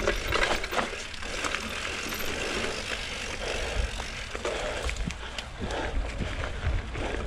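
Mountain bike ridden over dirt singletrack: steady tyre and trail noise, with the chain and frame rattling in scattered small clicks and knocks.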